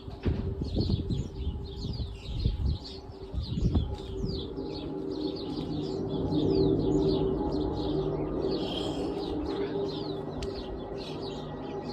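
Small birds chirp repeatedly over the steady drone of a large military aircraft's engines passing overhead. The drone swells after a few seconds, peaks about halfway through, then slowly fades. There are a few low thumps early on.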